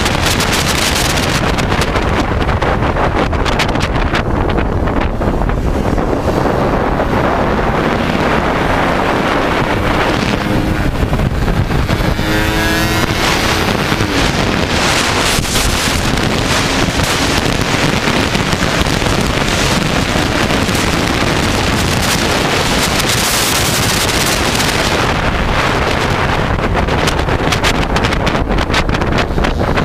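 Heavy wind blast on an onboard camera microphone from a small underbone racing motorcycle at speed, with the bike's engine running hard underneath. About halfway through, the engine note stands out more clearly for a few seconds and shifts in pitch.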